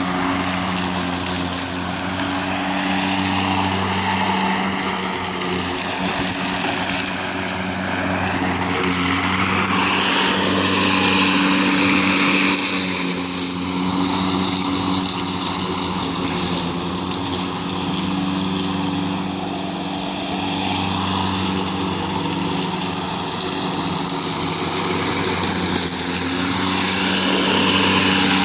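Greenworks 40V 19-inch cordless electric lawn mower running while cutting grass: a steady motor and blade hum over a rushing noise, its level rising and dipping slightly with the load.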